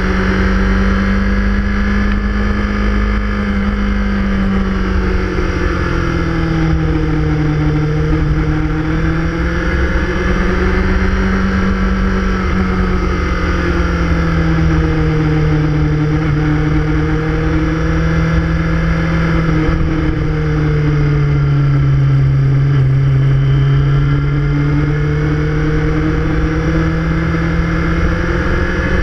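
Sport motorcycle engine running hard at speed, heard from on board the bike, its pitch sliding slowly down and back up several times, over a steady rush of wind on the microphone.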